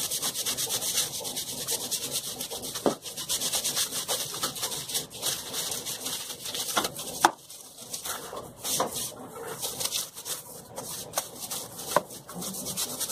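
Stiff plastic broom bristles scrubbing a wet, soapy ceramic tile floor in quick back-and-forth strokes, with a brief pause a little past halfway and an occasional sharp knock.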